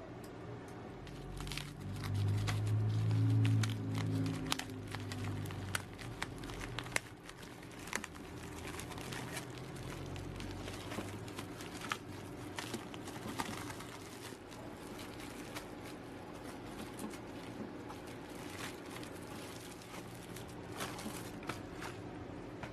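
Plastic bubble mailer crinkling and crackling as it is handled, opened and its contents pulled out, with many small crackles throughout. A low drone swells for a few seconds about two seconds in.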